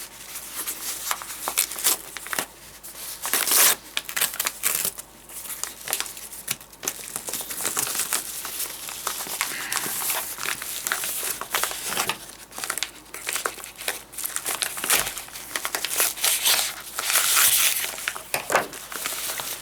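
Packing material being crinkled and rustled by hand while a mail-order shipping box is unpacked, in irregular bursts with louder crumpling about three and a half seconds in and again near the end.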